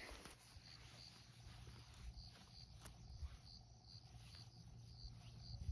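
Faint cricket chirping: a regular high chirp, about two to three a second, starting a second or so in, over a low steady rumble.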